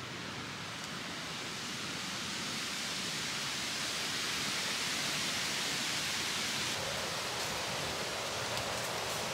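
Wind blowing through oak and hickory treetops, a steady rush of leaves that builds over the first few seconds.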